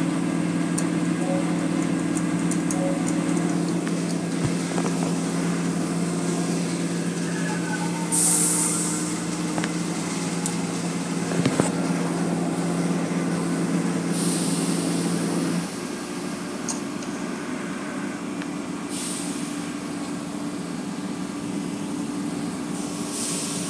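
Automatic car wash machinery heard from inside the car: a steady machine hum that cuts off about two-thirds of the way through, with several short bursts of hissing spray against the car.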